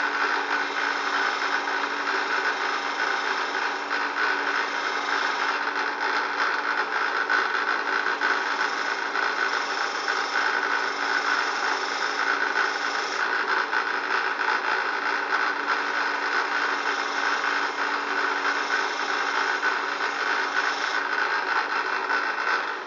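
Belt sander running steadily while a butter knife is sharpened against its moving belt, with a high squeal over the motor hum. It is switched off at the end and runs down.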